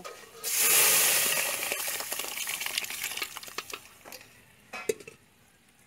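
Hot oil tempering of mustard seeds, garlic, dried red chillies and curry leaves hisses as sambar is poured into it: a sudden loud sizzle about half a second in that slowly dies away over the next few seconds. A few metal clinks against the pot sound through it, and one more near the end.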